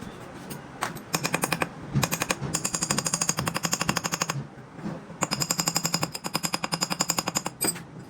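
Rapid mechanical hammering from a workshop tool, about ten sharp strokes a second with a metallic ring, in three bursts: a short one about a second in, a long one of some two seconds, then another about five seconds in.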